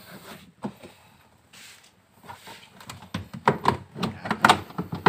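Plastic rear side trim panel of a Suzuki Alto 800 being worked loose and handled: a single click, then a quick run of sharp plastic knocks and clicks starting about three seconds in.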